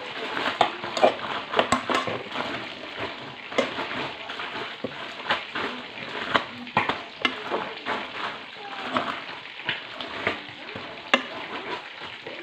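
Raw chicken giblets being mixed by hand with seasoning in a pot: a continuous wet crackling and squelching broken by many small sharp clicks.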